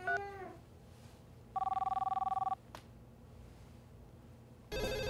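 Telephone ringing tone heard from the phone: one trilling two-tone ring about a second long, after a short keypad beep right at the start. A louder steady sound of several held tones starts near the end.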